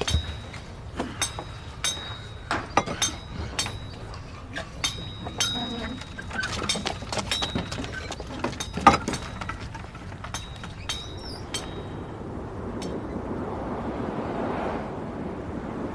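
Many irregular metallic clinks and knocks, a couple of strikes a second, many ringing briefly with a high tone. About twelve seconds in they stop, and a rising whoosh swells in.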